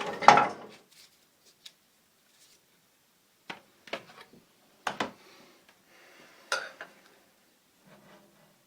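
Scattered knocks and clunks of things being handled, a few seconds apart, with the sharpest about six and a half seconds in; no saw is running.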